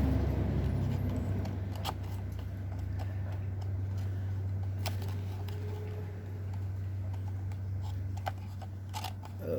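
A few light clicks and taps of small skate parts being handled, over a steady low hum.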